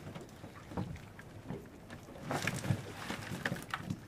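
Irregular taps and slaps of live menhaden (pogies) flopping on a boat deck and against a bucket as a cast net full of them is shaken out over it, busiest in the second half.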